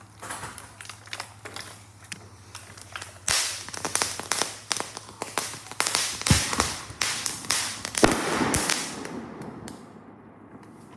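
Consumer fireworks going off: a rapid, irregular run of pops and crackles with a few heavier bangs, thickest in the middle and dying away near the end.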